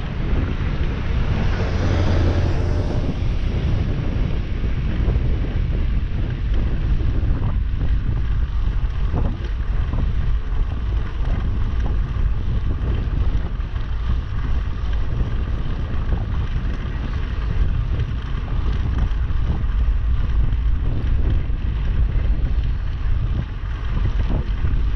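Wind buffeting the microphone of a camera on a moving bicycle, a steady low rumble with road noise. A passing city bus swells up and fades about two seconds in.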